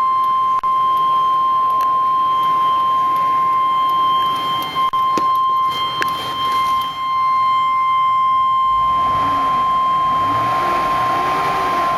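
The 2002 Chevrolet Express van's dashboard warning buzzer sounding one steady, unbroken high tone in the cab. A rushing noise joins about nine seconds in.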